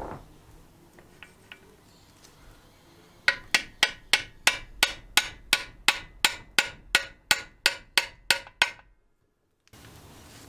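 A hammer tapping on metal: a steady run of about sixteen sharp, ringing strikes at about three a second, starting a few seconds in and stopping shortly before the end.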